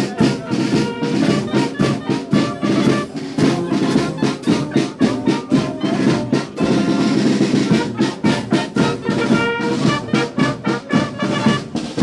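Municipal wind band (harmonie) playing: brass with a steady drum beat.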